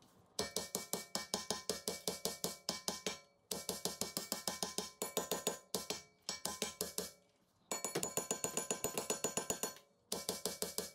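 Hammer blows on a cast iron brake rotor rusted onto the hub, in fast runs of several strikes a second broken by short pauses, the rotor ringing with each hit as it is knocked loose.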